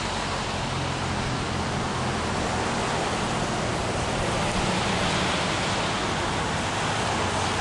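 Steady, even hiss of outdoor background noise, with a faint low hum beneath it.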